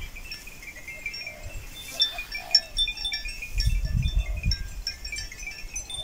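Small bells on grazing cattle tinkling irregularly in short, high ringing notes. A brief low rumble comes about four seconds in.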